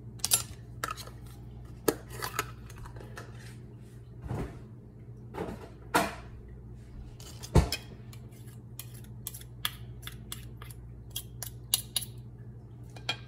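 A spoon clinking and scraping against a jar and a mixing bowl as minced garlic is scooped in: irregular taps and knocks, the loudest about halfway through, over a steady low hum.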